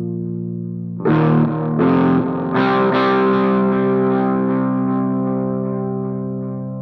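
Background music: distorted electric guitar chords, struck three times in quick succession about a second in, then a held chord ringing out and slowly fading.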